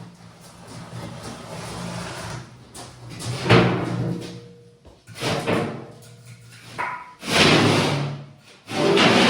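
Opening music with several loud swells, the strongest about three and a half seconds in and again near the end.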